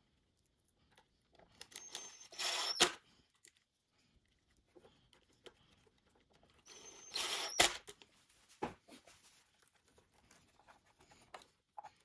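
Wires and connectors being handled and pushed into place at an electric unicycle's controller: two short scraping rustles, each ending in a sharp click, with a lighter click about a second after the second one.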